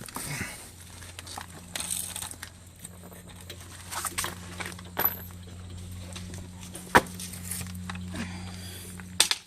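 Hand tools and parts being handled: scattered clicks and rustling, with one sharp knock about seven seconds in, over a steady low hum.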